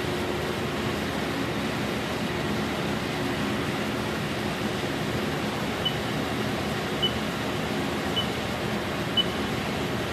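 Steady hum and hiss of a CHMER 323C sinker EDM running an edge search, with four short high beeps about a second apart in the second half.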